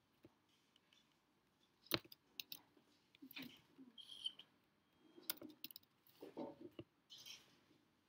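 Sparse computer keyboard keystrokes and clicks while code is being typed and edited: a few sharp, irregularly spaced taps, the loudest about two seconds in, with a small cluster a little after five seconds.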